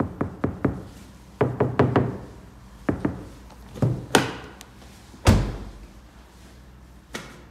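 Knuckles knocking on the outer panel of a 2019 Seat Leon FR door freshly lined with CTK sound-deadening material, in quick runs of three or four knocks that sound solid, the sign of the deadened panel. About four seconds in the door handle is pulled, and a second later the door shuts with one heavy, low thud; a single click follows near the end.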